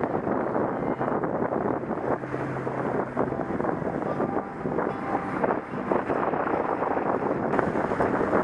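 Wind buffeting the microphone aboard a small sailing trimaran under way: a steady, fluttering rush with no other distinct sound standing out.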